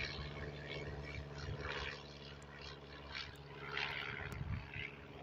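A small propeller airplane's engine drones steadily as it climbs away after takeoff, growing fainter after about two seconds. Short rushes of hiss come now and then over it.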